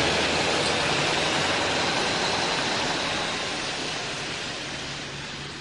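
A vehicle engine running with a steady low hum under a loud rushing noise, growing gradually quieter.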